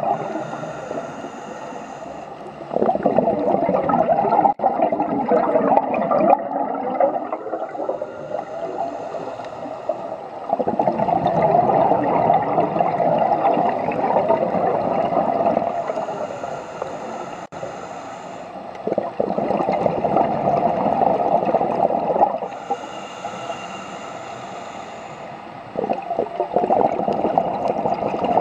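Scuba regulator breathing: four long bubbling exhalations, each a few seconds, alternating with a quieter high hiss as the diver inhales through the demand valve.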